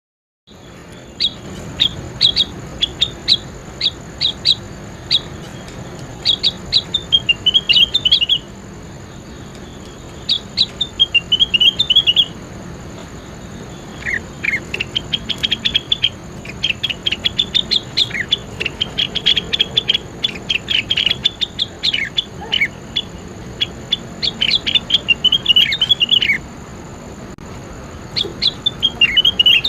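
A songbird singing long runs of rapid, sharp chirps and short down-slurred notes, broken by brief pauses, over a faint steady high whine.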